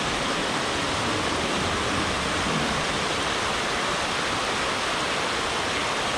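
Water pouring over a low concrete weir in a steady rush.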